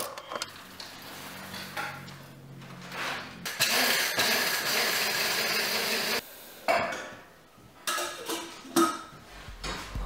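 Metal and glass parts of a stainless steel French press clinking and scraping as the lid and plunger are handled. A loud, steady hiss runs for about two and a half seconds in the middle and cuts off suddenly, followed by a few more light clinks.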